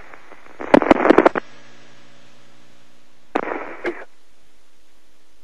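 The space shuttle and space station crews clapping in two short bursts, one about a second in and one about three seconds in. Heard over the crackly, narrow-band space-to-ground radio link, with sharp distorted pops.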